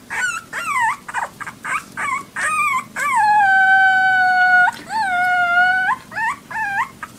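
Small puppy howling: a run of short yips that fall in pitch, then two long, level howls one after the other, and a few more short yips near the end.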